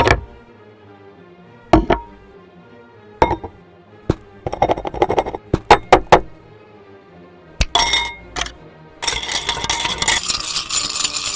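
Hard objects clinking: single sharp clinks spaced a second or two apart, then a quick run of several, followed near the end by a few seconds of dense rustling or crackling noise, over soft background music.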